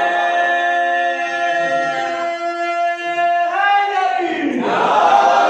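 A man's voice chants a long held note that rises about three and a half seconds in. A group of men's voices then calls out together in response.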